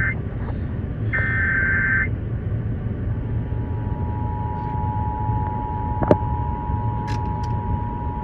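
Emergency Alert System transmission over a radio: the last two bursts of the SAME digital header, a warbling data screech, then about three seconds in the steady two-tone EAS attention signal starts and holds. A steady low rumble runs underneath, and there is a sharp click about six seconds in.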